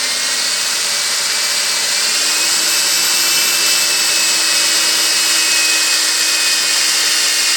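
Electric drill with a concrete (masonry) bit grinding steadily into the base of a ceramic flowerpot, a loud, even grinding hiss with a high whine running through it.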